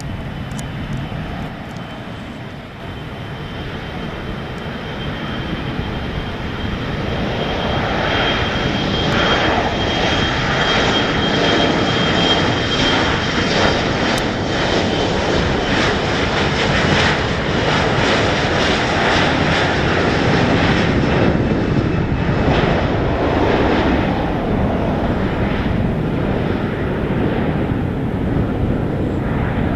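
Takeoff of an Embraer E175 regional jet: its two GE CF34-8E turbofans spool up with a high steady whine, and the engine noise grows louder over the first several seconds. It then stays loud and crackling as the jet runs down the runway, lifts off and climbs away.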